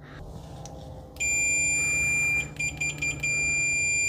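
FNIRSI S1 multimeter's continuity beeper sounding a loud, steady high-pitched tone, starting about a second in and stuttering into a few short beeps midway before holding steady again: the meter is signalling a closed circuit. It reads about 78 dB on a sound level meter.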